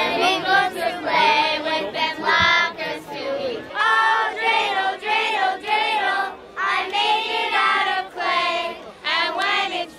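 A group of children singing a song together, in sung phrases with short breaks between lines.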